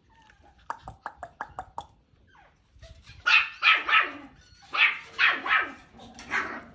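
A dog barking in a quick run of about seven short barks, each falling in pitch, after a rapid series of soft ticks about a second in.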